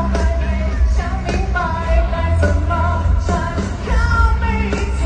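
Live pop-rock concert music: a sung melody over heavy bass and regular drum hits.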